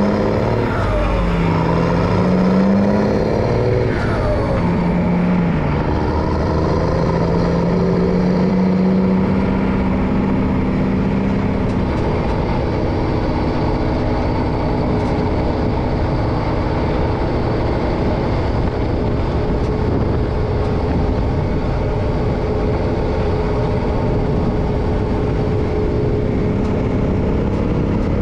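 MAN LE280B 4x4 truck's diesel engine running on the move, with road noise. The engine note rises and falls a few times over the first several seconds, then holds steady.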